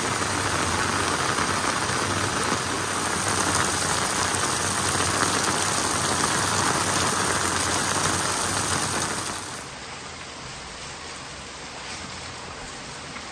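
Rain falling steadily, an even rushing noise that drops to a quieter level about nine and a half seconds in.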